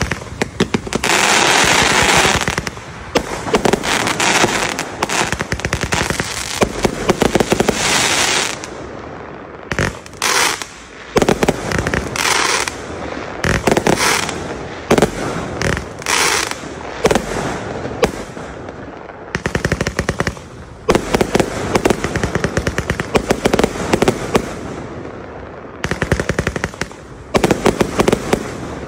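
A 168-shot, 0.8-inch fireworks cake firing in rapid succession: dense runs of launches and bursts, like machine-gun fire, broken by short gaps between volleys.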